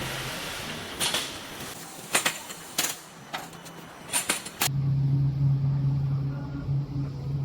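A run of sharp knocks over a steady hiss, then an abrupt change to a steady low machine hum.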